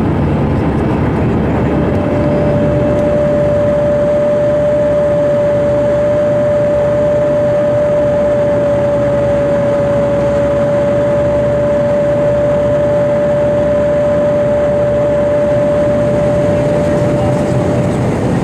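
Airbus A320 cabin noise in flight: the steady rush of airflow and jet engines. A steady whine comes in about two seconds in and stops near the end.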